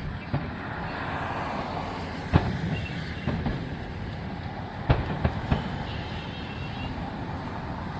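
Distant fireworks going off as a string of sharp bangs over a steady rushing noise. The loudest bangs come about two and a half and five seconds in, with lighter pops around them.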